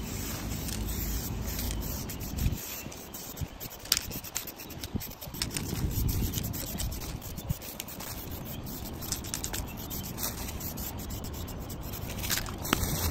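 Rubbing and scraping against rough tree bark, with scattered short clicks and taps.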